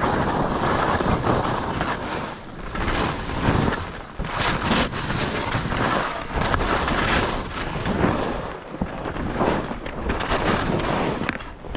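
Wind rushing over the microphone of a skier moving fast, mixed with skis scraping and skidding on firm snow. The noise swells and eases with each turn.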